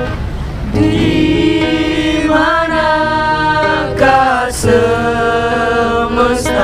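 Voices singing a slow melody together in long held notes. A plucked-string phrase is fading out as the singing comes in about a second in.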